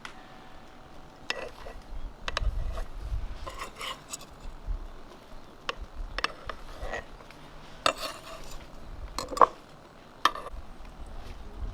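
Kitchen clatter: scattered clinks and knocks of utensils against dishes and cookware, some with a short ring, coming at irregular intervals.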